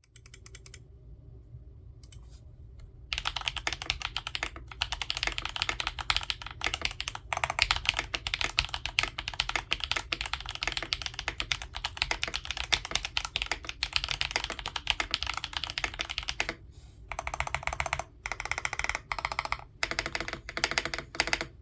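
Typing on a mechanical keyboard with a stacked acrylic case and plate, Gateron Baby Kangaroo tactile switches and GMK keycaps. A few faint keystrokes come first, then a fast continuous run of typing from about three seconds in, a brief pause, and shorter bursts of typing near the end.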